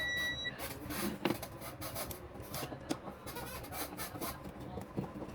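A steady high electronic beep cuts off about half a second in. It is followed by irregular scraping, rubbing and small clicks of hands and tools working on a small appliance.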